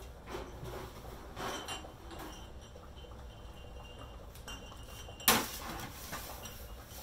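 A metal baking sheet of empty half-pint glass canning jars is handled out of the oven, the jars clinking faintly against each other and the tray. About five seconds in, the tray comes down on the stovetop with one loud metallic clank that rings briefly.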